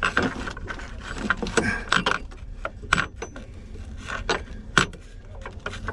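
Wrench working a nut welded onto a sheared motor-mount lag bolt: irregular metallic clicks and clanks as the bolt is turned out little by little.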